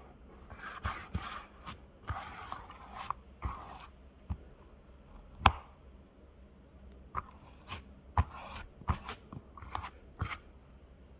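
Handling noise from re-gluing a fabric drainer: irregular short scrapes and rustles of hands and tools on the fabric, with scattered sharp clicks and taps, the sharpest about five and a half seconds in.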